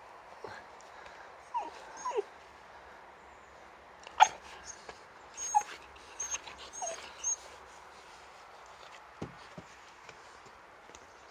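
Boxer puppy giving a handful of short, high yips and whiny barks, each dropping in pitch, bunched in the first seven or so seconds.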